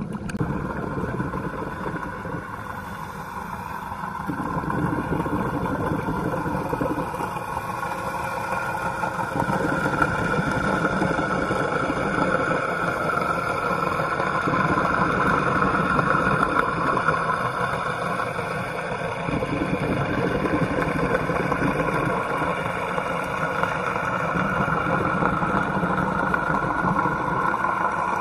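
Steady drone of a motorboat's engine and propeller heard underwater, growing louder over the first ten seconds and then holding level.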